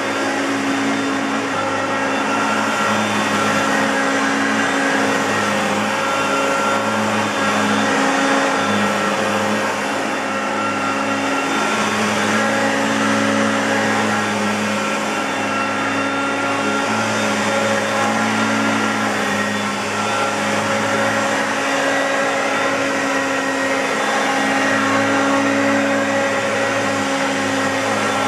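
Hoover Concept Two Electronic upright vacuum cleaner running steadily, its motor hum wavering slightly in pitch.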